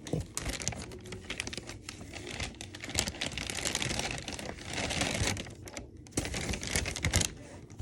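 Crinkling plastic and a dense clatter of quick clicks as a container of small plastic fidget toys is rummaged through, stopping suddenly near the end.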